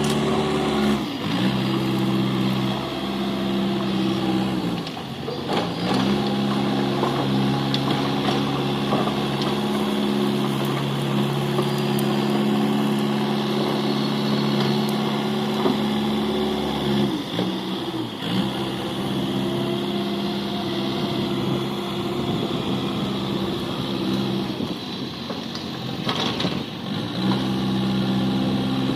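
JCB backhoe loader's diesel engine running steadily during dozing and levelling work. Its note sags and recovers briefly a few times.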